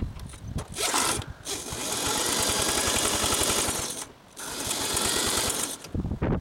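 Cordless drill spinning a single-cylinder small go-kart engine over through a socket on its flywheel nut: the drill's motor whine over the rapid chugging of the engine turning over, in two runs with a short break about four seconds in. The engine is being cranked with what the owner thinks is no fuel in it.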